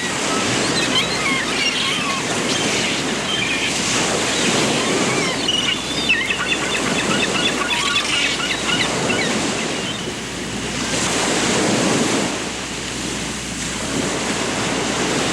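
Surf washing steadily, swelling and ebbing, with small birds chirping in quick, high notes over it, most of them in the first half.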